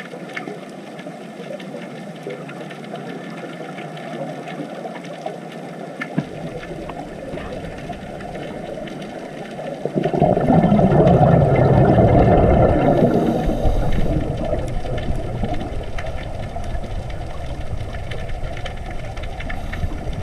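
Low rumbling underwater noise, heavy in the bass, that swells sharply louder about halfway through and then eases back a little.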